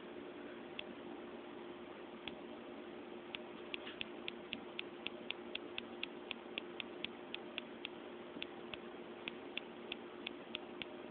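Light, sharp ticks, a few scattered at first, then a quick run of about four a second for several seconds, then spread out again, over a faint steady hum.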